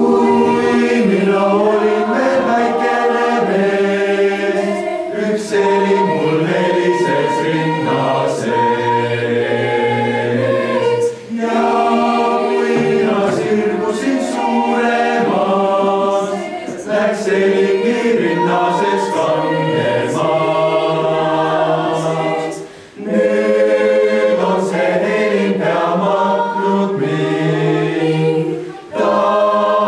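Mixed youth choir of girls and boys singing a cappella in several parts, in long phrases with brief pauses between them.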